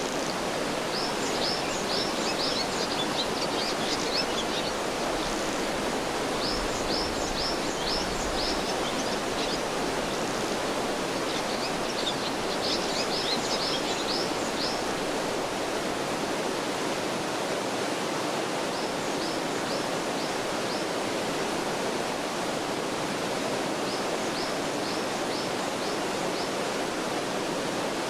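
Gorge stream running steadily over its bed, with a small bird singing quick runs of short, high, down-slurred notes in bursts every few seconds.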